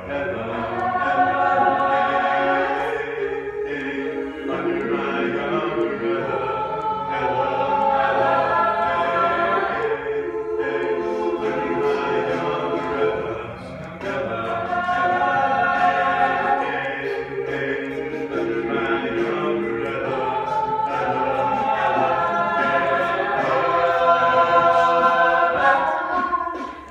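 Mixed-voice a cappella group singing in harmony, with one lead voice over the backing voices, and no instruments.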